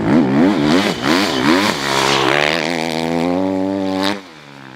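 Dirt bike engine revving. Its pitch rises and falls with quick throttle blips for the first couple of seconds, then holds a steadier high rev and cuts off suddenly about four seconds in.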